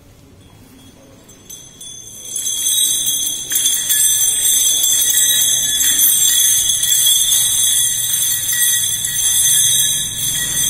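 Metal bells ringing continuously, starting about two seconds in.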